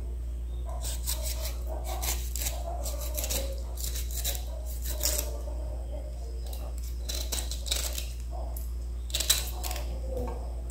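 Sharp kitchen knife cutting and scraping through the rind of a ripe pineapple: a run of crisp, irregular slicing and rasping strokes, several in quick pairs, over a steady low hum.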